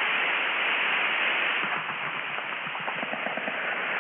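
Two-way radio static: a steady, band-limited hiss, with faint choppy voice-like fragments breaking through it in the second half.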